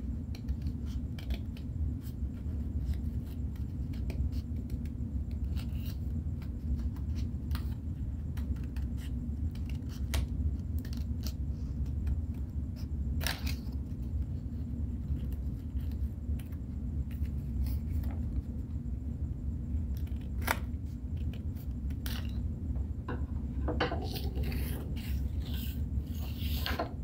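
Scissors snipping through several layers of folded paper, a scattering of short sharp snips over a steady low hum. Near the end the cutting stops and the cut paper rustles as it is handled.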